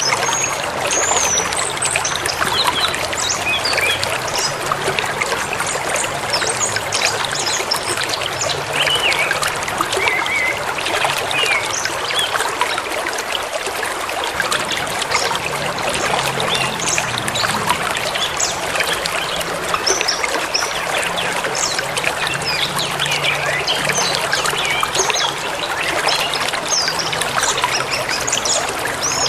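A forest river flowing steadily, with small birds chirping on and off above the rush of the water.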